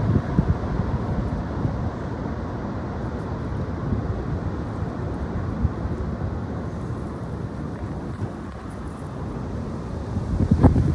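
Strong gusty wind blowing across the microphone, a low rushing noise that swells near the start and again near the end.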